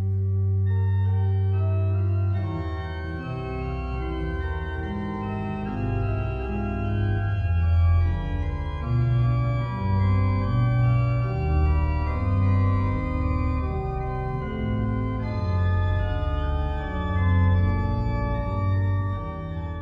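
Organ music: a held chord at the start, then slow sustained chords over a moving bass line.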